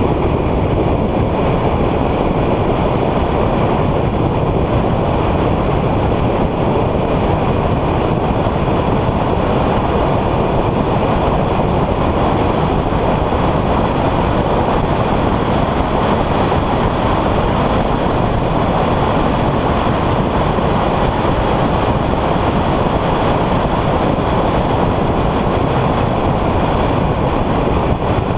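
Steady wind and road noise of a car at speed on a race track, picked up by a camera mounted on the car.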